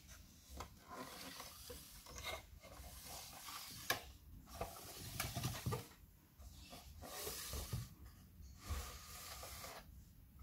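Handling noise: rubbing and scraping in two stretches, with one sharp click about four seconds in.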